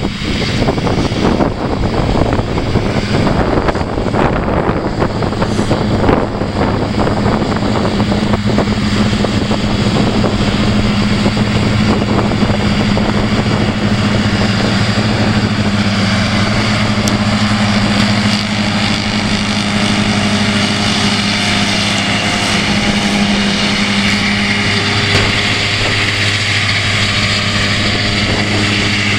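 New Holland TM165 tractor's six-cylinder diesel engine running at a steady drone under load while pulling a mower through grass for silage.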